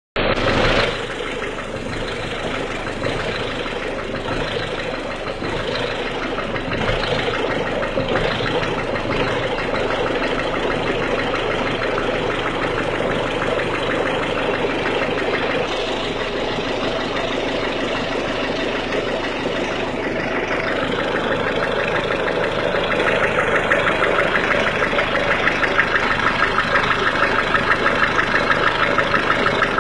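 1.6 HDi diesel engine idling cold with a rhythmic knocking clatter (claquement). It grows louder and the clatter more marked after about twenty seconds.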